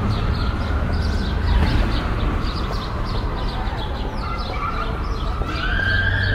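Many small birds chirping busily over a low, steady rumble of city traffic. Near the end a high, drawn-out call rises and then falls.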